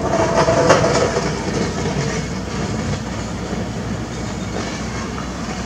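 Mini excavator's diesel engine running steadily, with a louder rattling clatter in the first second or so.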